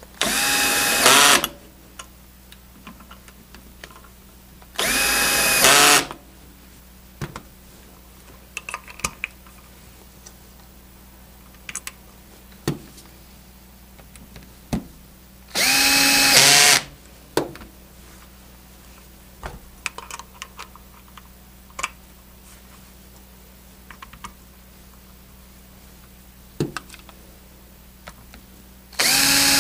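Cordless screw gun on a low torque setting driving the screws that hold the manifold's valve handles onto their feed screws. It runs at a steady pitch in four short bursts of about a second each, near the start, about five seconds in, midway and at the end, with small clicks of handling between them.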